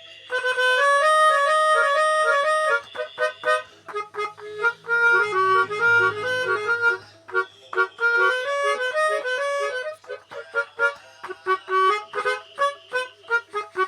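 Basuri-type telolet bus horn, a set of electric horn trumpets, playing a melody in reedy multi-note chords. It opens with held chords, then plays tune phrases with a short break in the middle, and ends with rapid stuttering short notes.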